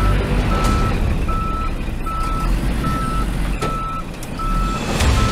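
Back-up alarm on a heavy-haul transporter beeping steadily, a little more than once a second, over the low running of diesel engines. Two short, sharp sounds cut in near the end.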